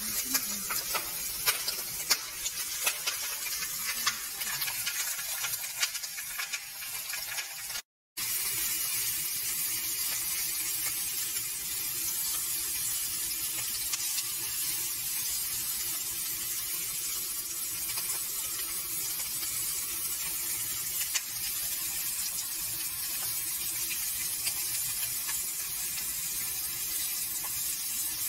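Flour-dredged Atlantic herring frying in hot oil in a pan: a steady sizzle with small crackling pops, busier in the first several seconds, broken by a brief dropout about eight seconds in.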